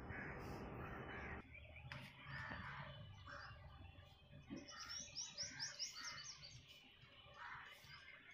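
Faint, repeated short animal calls, about two a second, with a quick run of thin high chirps about five seconds in.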